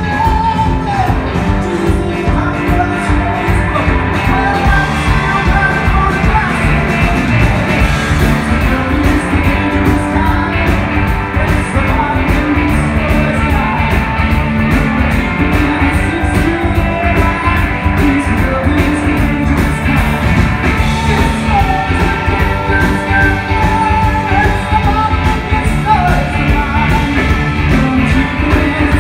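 Live rock band playing loudly: electric guitars, bass guitar and drums driving a steady beat, with a lead voice singing over them.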